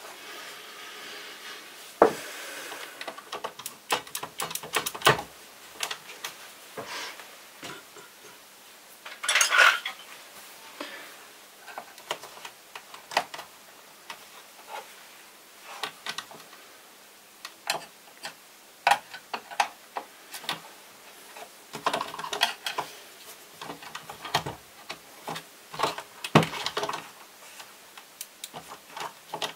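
Screwdriver and hands working on the plastic underside of a Vorwerk VR100 robot vacuum: scattered clicks, knocks and short rattles of tool and plastic housing. There is a sharp knock about two seconds in and a brief clatter around nine seconds.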